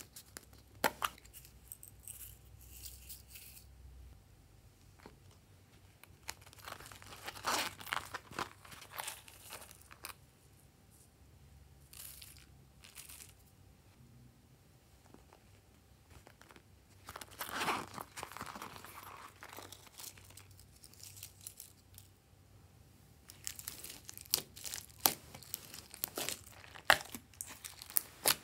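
Slime being handled: scattered rustles and clicks as sequins and confetti are dropped onto glass trays of glossy slime. From about two-thirds of the way in, fingers press and knead white fluffy slime into gold glossy slime, with dense crackling pops.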